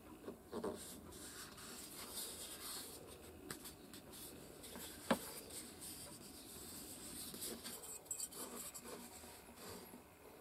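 Fingertips and steel tweezers rubbing and pressing a paper crest template down onto a wooden block: faint scratching and rustling, a few soft knocks near the start, and one sharp click about halfway through.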